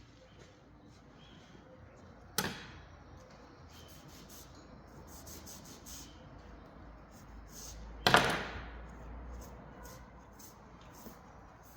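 Two sharp knocks about six seconds apart, the second the louder, each with a brief ringing tail, with faint scattered clicks between them.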